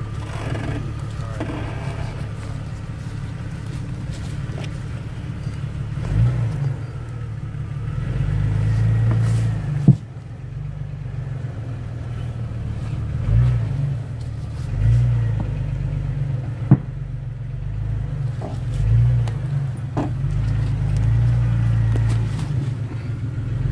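Jeep Cherokee XJ engine idling at crawling pace, swelling in several short throttle bursts as the Jeep climbs over and drops off a stack of old tyres. Two sharp knocks stand out, one near the middle and one later on.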